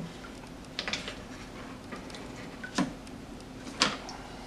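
Three or four short, sharp clicks and taps from a wrench working the brass compression fitting on a leaking inline refrigerator water filter, over a low steady hum.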